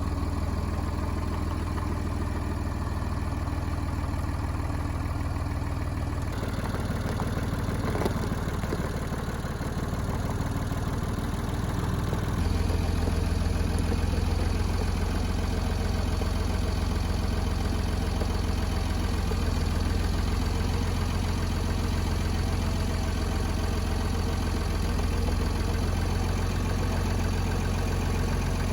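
Tractor engine running steadily. The engine note shifts about six seconds in, then grows louder about twelve seconds in, as if throttled up under load.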